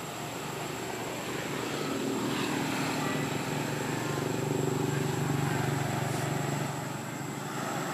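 Engine hum of a passing motor vehicle: a steady drone that builds to its loudest about five seconds in, then eases off near the end.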